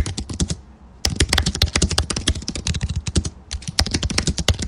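Rapid typing on a computer keyboard: fast runs of keystrokes, with a pause of about half a second near the start and a brief one just past three seconds.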